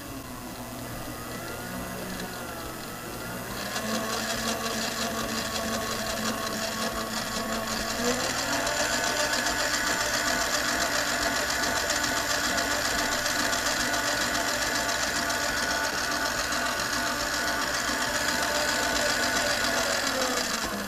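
Tramontina by Breville stand mixer running, its beater mixing flour into a cake batter at low speed: a steady motor whine. It gets louder about four seconds in, its pitch steps up around eight seconds in, and it winds down at the very end.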